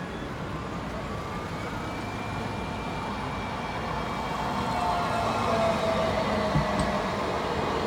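A tram coming closer, growing louder from about halfway through, with a faint whine that drifts slowly in pitch over steady rumble.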